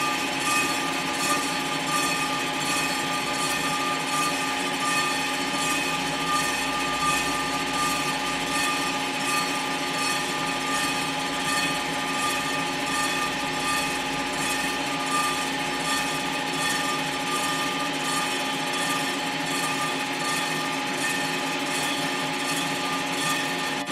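Storm Vulcan Blockmaster 85B surfacing machine running, its rotating cutter head taking a light decking cut across a Willys F134 cast-iron cylinder head to flatten it. A steady machine hum and whine with a regular pulse about twice a second.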